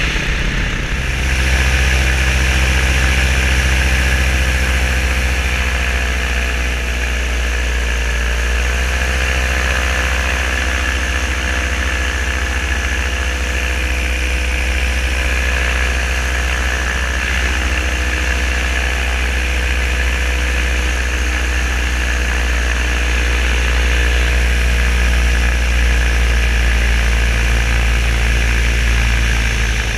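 Paramotor engine and propeller running steadily, its pitch rising slightly about nine seconds in.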